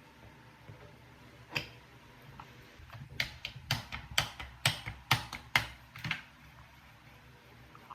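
Sharp clicks or taps: a single one, then a quick, irregular run of about nine over roughly three seconds.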